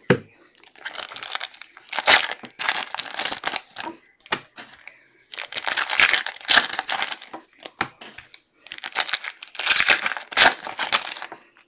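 Foil trading-card pack wrappers being torn open and crinkled by hand, in three spells of crackling with short pauses between, after a short knock right at the start.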